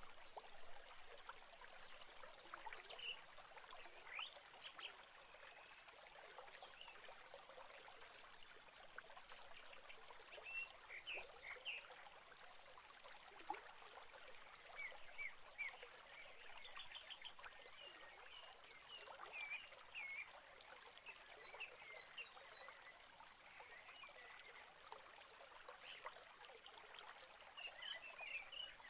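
Faint, high peeping of newly hatched great tit chicks in a nest box, coming in short clusters of quick chirps, over a light crackling.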